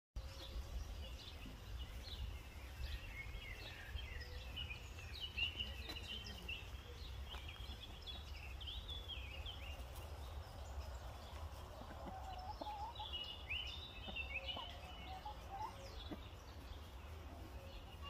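Outdoor birdsong: small birds chirping and twittering at a high pitch over a steady low rumble. About two-thirds of the way in, lower wavering calls from the turkeys or hens join in for a few seconds.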